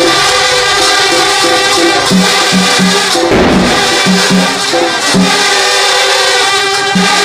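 Many long brass bhungal horns blowing held notes together in a dense droning chord, over a drum beating a few times a second. A short rush of noise cuts in a little before halfway.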